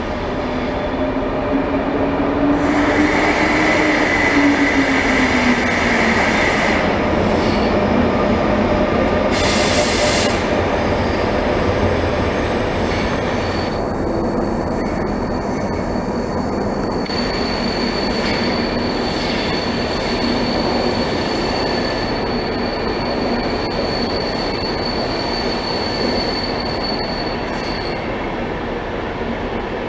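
ÖBB Railjet train running slowly through the station: steady rumble of wheels on rails with wheel squeal. A tone rises and falls over the first few seconds, there is a short hiss around the middle, and a thin high squeal holds from about halfway until near the end.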